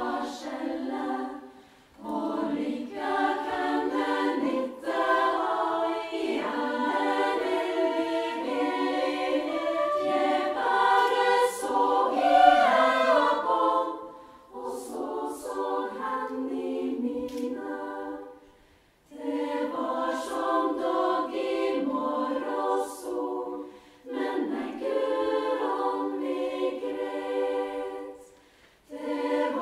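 Female choir singing a song in Norwegian, unaccompanied, in phrases broken by short pauses every few seconds.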